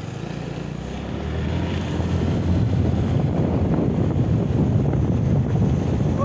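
Wind buffeting the microphone of a moving vehicle, a dense low rumble with the engine running underneath; it grows louder over the first two or three seconds, then holds steady.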